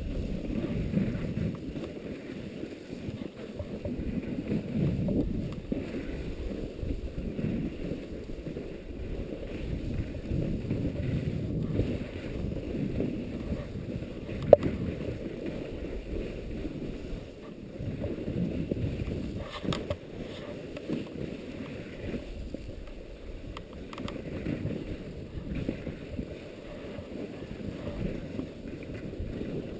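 Strong wind buffeting an action camera's microphone: a low rumble that swells and fades with the gusts. A single sharp click about halfway through.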